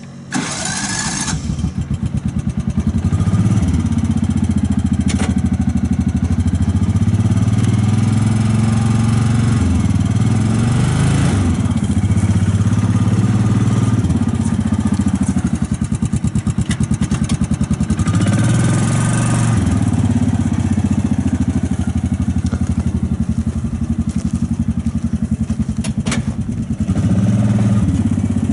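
Gasoline engine of a Kawasaki Mule utility vehicle starting in the first second, then running as the Mule is driven, engine speed rising and falling several times as it pulls away, turns and comes back.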